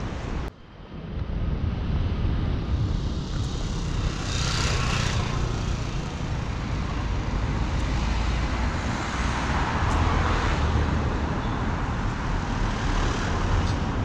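Steady outdoor rumble: wind on the microphone mixed with road traffic noise, with a short hiss about four seconds in.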